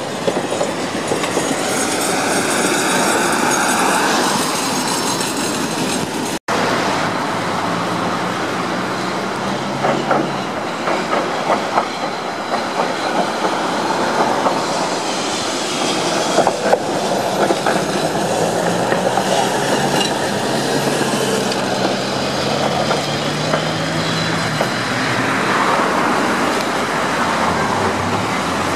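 City trams rolling along street tracks, their wheels clacking over rail joints, mixed with car traffic hissing on a wet road. There is a brief dropout about six seconds in.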